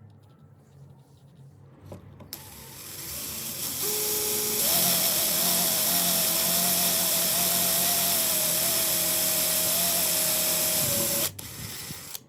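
A small handheld electric power tool's motor starts up, steps up in speed, runs steadily with a whine and a hiss for about six or seven seconds, then cuts off suddenly.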